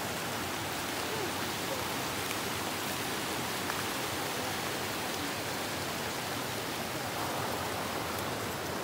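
Mountain creek rushing over boulders in small whitewater cascades: a steady, even rush of water.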